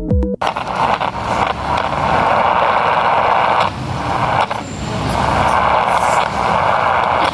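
Loud static from a small radio speaker: a dense hiss with crackles that cuts in abruptly about half a second in and swells and dips several times, the sound of a radio picking up electromagnetic interference.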